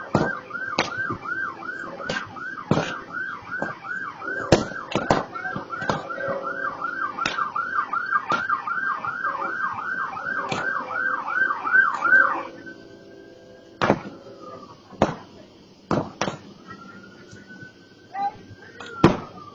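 Emergency vehicle siren on a fast yelp, about two and a half rising-and-falling cycles a second, which stops about twelve seconds in and is followed by a slower, quieter wail that rises and falls. Loud sharp pops sound throughout, the burning brush pile popping.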